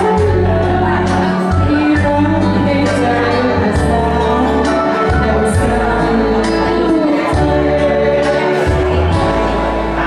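A woman singing a Thai song into a microphone over a karaoke backing track, with a bass line stepping between held notes.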